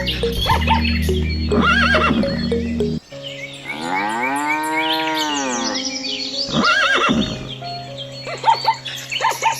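Background music with a farm-animal call laid over it: one long animal call about four seconds in that rises and then falls in pitch, with short bird chirps around it.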